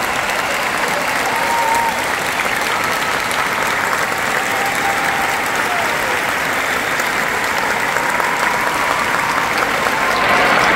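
Large arena audience applauding steadily, with a few voices calling out above the clapping; the applause swells slightly near the end.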